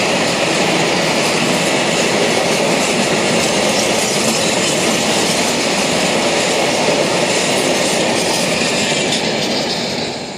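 Open freight wagons rolling past: the steady noise of steel wheels running on the rails, fading away near the end as the last wagon goes by.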